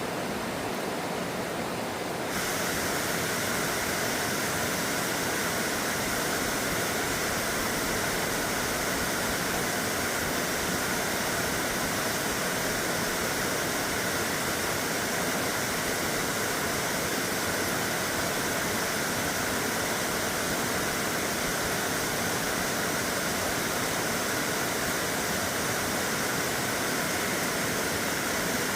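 Water rushing in a mountain stream, a steady rush that steps up louder and brighter about two seconds in.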